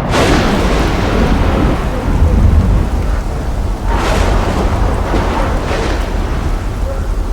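Thunderstorm: steady heavy rain with rolling thunder that starts suddenly, swelling into louder claps about four seconds in and again near six seconds.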